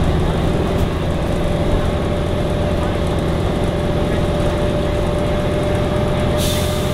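Volvo Olympian double-decker bus heard from on board while under way: steady diesel engine running and drivetrain noise with a steady whine, from a Voith automatic gearbox. A short hiss comes near the end.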